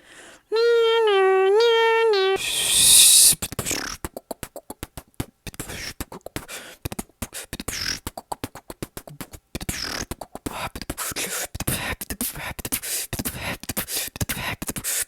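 A man making sound effects with his mouth: first a pitched hum whose pitch steps up and down, then a short loud hiss about two seconds in, followed by a long fast run of clicks and pops in a beatbox rhythm.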